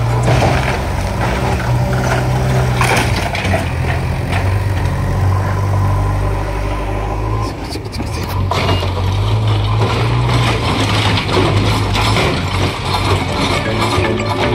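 Diesel engine of a JCB backhoe loader running steadily as it works among broken stone slabs, with scattered clinks and knocks of stone; a cluster of sharp knocks comes about eight seconds in.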